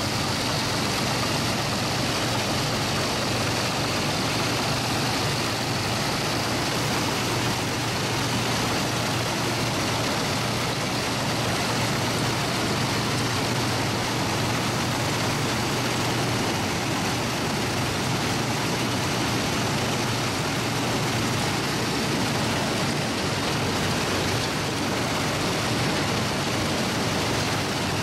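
Allis-Chalmers self-propelled combine harvesting grain under load: a steady engine hum mixed with the continuous noise of the threshing and cleaning machinery.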